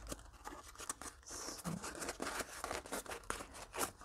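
Folded cardstock being handled and pressed: scattered light rustles, crinkles and small taps of stiff paper.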